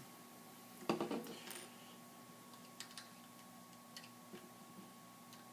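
Small plastic LEGO pieces being handled: a sharp click about a second in with a brief rattle, then scattered light clicks of parts being picked up and pressed together.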